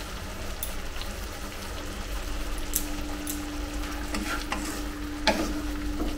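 Egg curry gravy sizzling in a kadai while a spatula stirs it, scraping and knocking now and then against the pan. A faint steady hum comes in about two seconds in.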